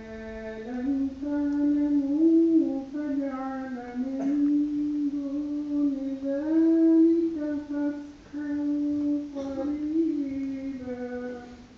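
A single voice chanting Quran verses in a melodic recitation style, holding long drawn-out notes that glide between pitches, with short pauses for breath about four and eight seconds in.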